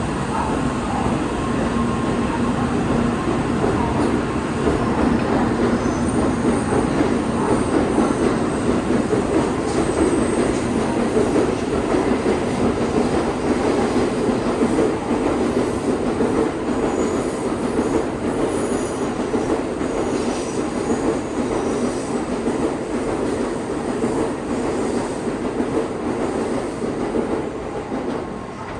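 A Tokaido Shinkansen train running, a loud steady rush of wheel and running noise that eases off near the end.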